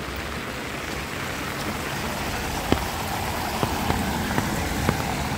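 Rain falling on a paved street, with a car driving past on the wet road, its tyres hissing, the sound swelling in the second half. A few sharp ticks sound through it.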